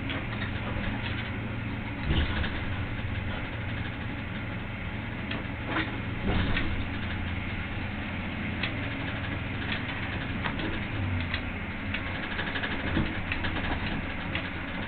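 Straddle carrier's engine running steadily, heard from inside the cab, with a few louder knocks about two seconds in and again around six seconds.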